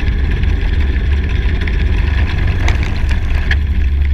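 Four-stroke go-kart engine running steadily, heard from a camera mounted on the kart as a constant low drone, with a few light clicks about three seconds in.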